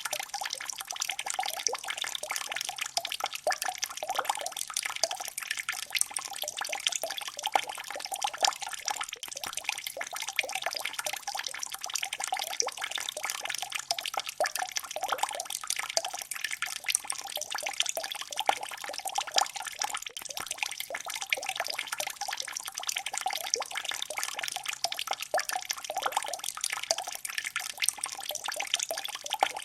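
Water drops falling steadily, many small drips in quick succession over a soft hiss.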